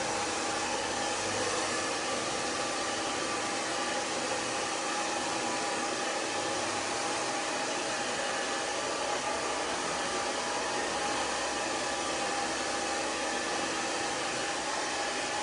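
Hand-held hair dryer running steadily: an even rush of air with a faint steady motor whine, unchanging throughout.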